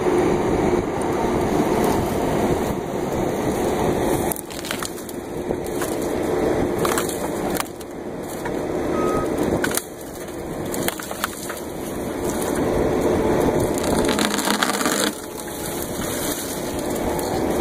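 Skid loader engine running steadily while its hydraulic tree shear cuts and crushes brush and saplings, with several sharp cracks of snapping wood a few seconds apart.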